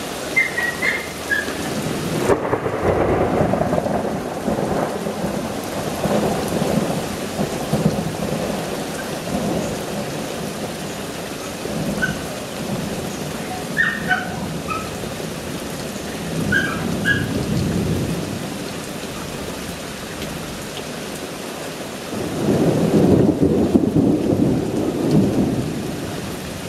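Thunderstorm: steady rain with several rolls of thunder, the loudest rumble near the end. A few short high chirps are scattered through it.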